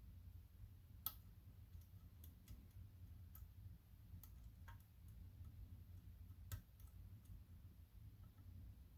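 Faint, irregular small metallic clicks of a hook pick working the pin stacks of an ISEO F6 extra padlock cylinder under tension, about seven over the stretch, over a low steady hum.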